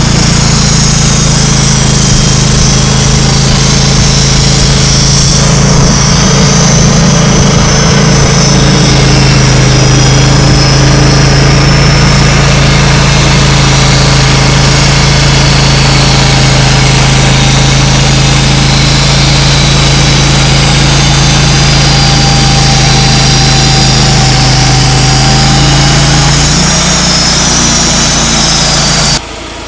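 Wood-Mizer LT35 portable sawmill running steadily with a firm low engine hum. Its pitch drops slightly near the end, then the sound stops abruptly.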